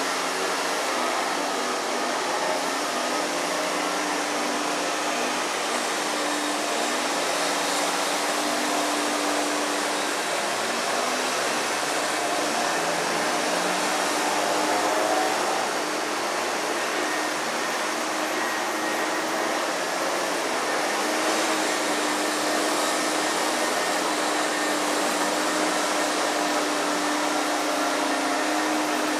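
Loud, steady running of a motor-driven machine: a continuous droning hum over an even hiss, with only slight wavering in pitch.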